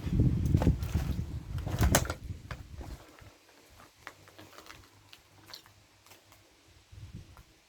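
Footsteps with a low rumble on the microphone for the first three seconds, then quieter, with only scattered faint clicks.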